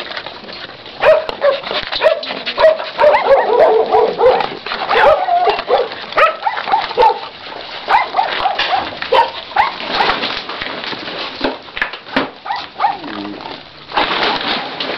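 A group of dogs whining and yelping at feeding time, many short overlapping calls one after another.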